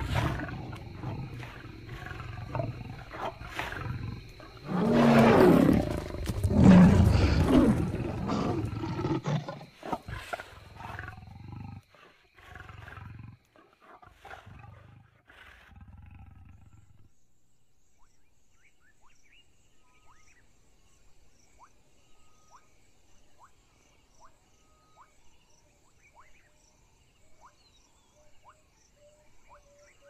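Lions roaring during a territorial fight, with the loudest roars about five and seven seconds in. The roaring dies down to a few weaker low calls and falls quiet about halfway through, leaving faint chirping insects.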